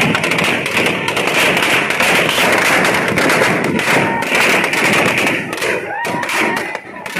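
Firecrackers packed inside a burning Ravan effigy going off in a dense, continuous string of cracks and bangs.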